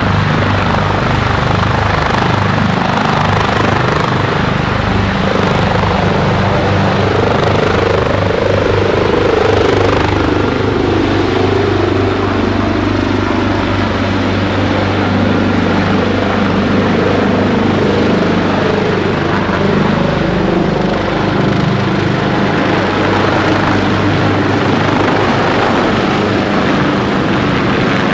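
State police helicopter lifting off from a lawn and climbing away overhead, its rotor noise loud and steady throughout.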